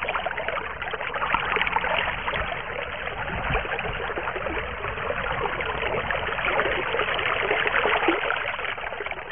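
Steady sound of running, trickling water.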